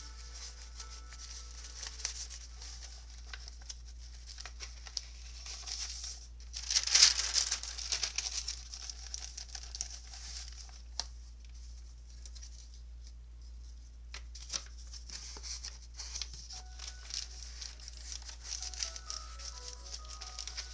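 Pages of a handmade paper junk journal being handled and turned: soft paper rustling and crinkling with small taps. A louder page-turn rustle comes about seven seconds in. Quiet background music plays underneath.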